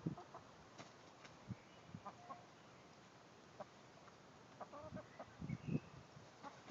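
Domestic hens clucking softly, with a few short calls now and then and a couple of soft low thumps about five and a half seconds in.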